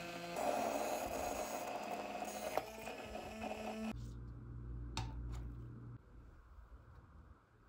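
Hand-held immersion blender running in a tall plastic beaker of liquid, growing louder and rougher about half a second in, then switched off about four seconds in. A low hum and a single click follow.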